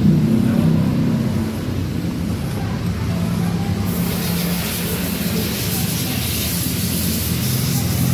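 A steady engine-like hum with a high hiss that joins about halfway through.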